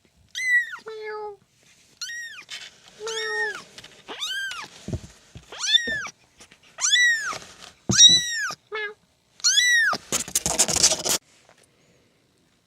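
A kitten mewing over and over: about ten high, arching mews, each rising and falling in under a second. A burst of scratchy rustling comes near the end.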